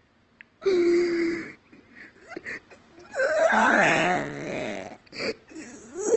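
Wheezing, breathless fits of laughter from a person: a short held squeaky wheeze about a second in, then a longer burst of wheezing laughter from about three to five seconds in.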